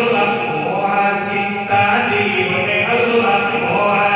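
A man chanting a devotional kalam (poem) in a melodic, sung style into a microphone, holding long, wavering notes with a short breath break about one and a half seconds in.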